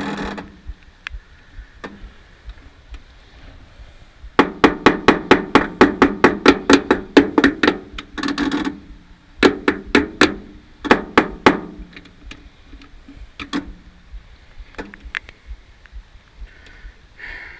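Starter solenoid on the Woodchuck wood chipper's engine chattering in rapid clicks, about six a second, in two runs: a long one about four seconds in and a shorter one a few seconds later. The engine does not turn over. This machine-gun chatter is the sign of a battery too weak to drive the starter, here reading about 11 volts.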